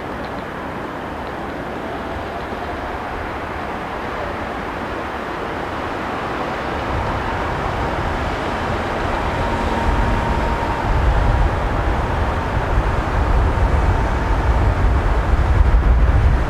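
Steady noise at a railway station, with a low rumble that grows louder from about halfway through and a faint steady tone in the middle.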